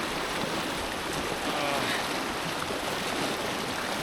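Mountain river water rushing, a steady even rush with no break.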